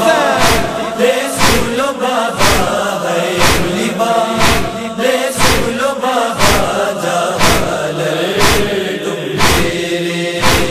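Matam: mourners beating their chests in unison, a sharp slap about twice a second, under a chorus of men chanting a noha.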